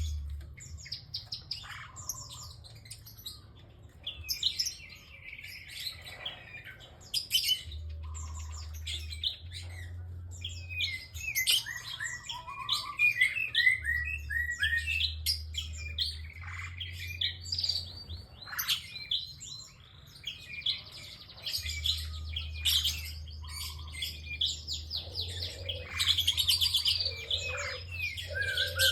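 A prinia (prenjak) singing vigorously, giving rapid series of sharp, high chirps and trills, one burst after another with short pauses between.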